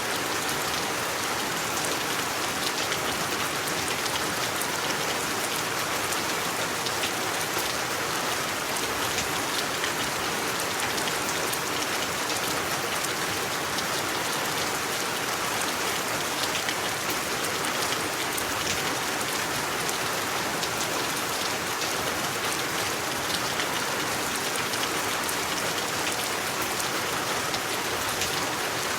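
Steady rain falling on a surface, a dense even hiss with many small drop ticks throughout.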